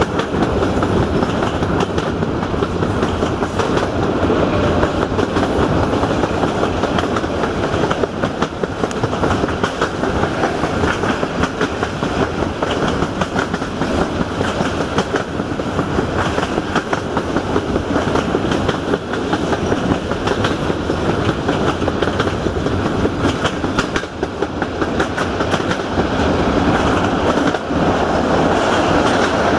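Train wheels running at speed on the rails, heard from an open coach window: a steady rumbling with a rapid, irregular clickety-clack of wheels over rail joints.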